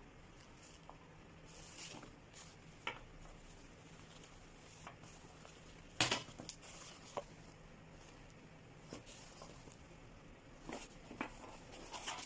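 A bag being handled: scattered soft rustles and small clicks, with one sharper click about six seconds in and a cluster of small clicks near the end.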